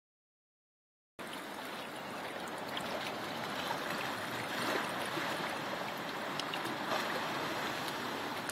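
Steady rushing water, the sea washing among shore rocks, starting suddenly about a second in, with a few faint light ticks over it.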